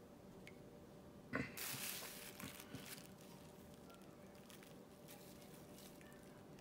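Plastic bag of seasoned flour crinkling as a wet, egg-dipped chicken tender is pressed and turned in it to coat it. A soft knock about a second and a half in opens a brief burst of rustling that fades within about a second and a half, with a couple of small taps after it.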